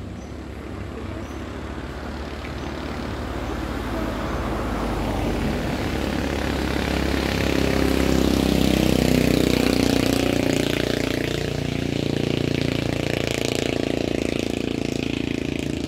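Motorcycle engine running while under way, growing louder over the first half. About two-thirds of the way through its pitch climbs as it accelerates, then it holds steady, with a rushing road noise underneath.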